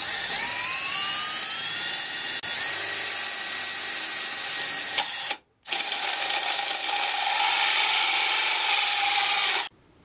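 Power drill spinning an adjustable hole saw as it bores into a scrap 2x8 block. The drill's pitch rises as it spins up, then it runs steadily under load. The sound drops out briefly about five and a half seconds in and stops abruptly near the end.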